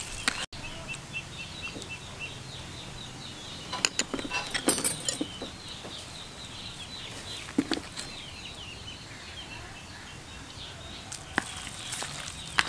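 A bird chirping rapidly in the background, a long series of quick high chirps through the first two-thirds, with a few sharp clicks about four to five seconds in. Hands squish and knead raw beef in a plastic bowl at the very start and again near the end.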